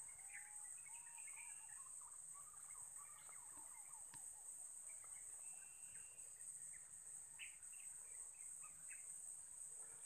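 Faint birdsong: several birds chirping and giving short whistled calls, over a steady high-pitched insect drone. There is a single faint click about four seconds in.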